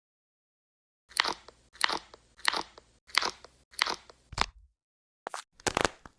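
Crunching from squishy stress toys being squeezed: six crisp crunches at an even pace, a little over half a second apart, then a short pause and two more.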